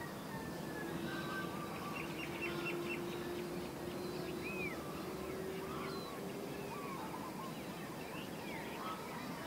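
Birds chirping and calling in short, scattered notes, with a quick trill about two seconds in. Under them runs the steady low hum of a distant Airbus A330's jet engines as it taxis and turns on the runway, edging slowly up in pitch.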